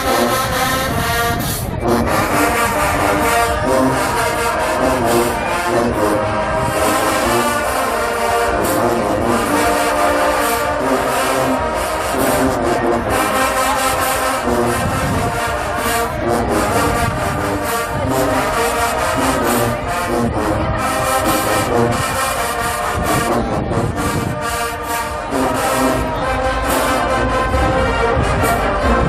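Marching band playing live: loud brass, with held chords, over a steady drum beat.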